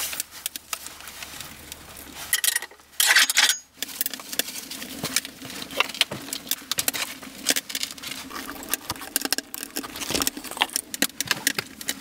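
Many small knocks, clinks and rustles of things being handled by hand, with a louder clatter about three seconds in.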